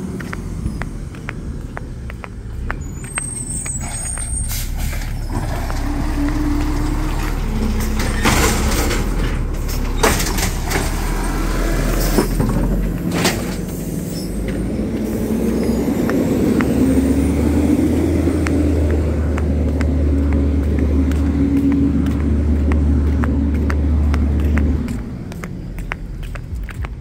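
Natural-gas automated side-loader garbage truck working a pickup: its engine runs under load while the hydraulic arm lifts and empties a trash cart, with a wavering hydraulic whine and several sharp knocks as the cart is dumped. The engine pulls harder for several seconds, then the sound drops away near the end.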